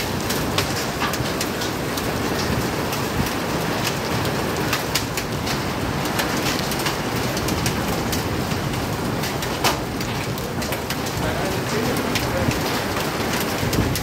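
Steady rain falling on a hard floor, a constant hiss with many sharp ticks of single drops hitting the surface.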